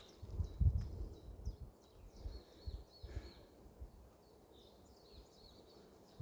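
Small songbirds chirping in short repeated notes, with low thuds and rumble during the first three seconds.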